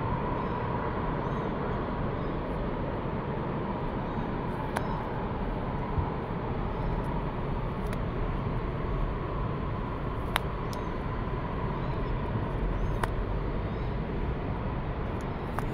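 Steady outdoor background noise with a faint steady hum, broken by a few small sharp clicks.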